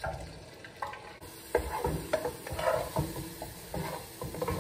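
Beaten eggs sizzling in hot oil in a pot, with a utensil scraping and stirring them against the pot in uneven strokes from about a second and a half in.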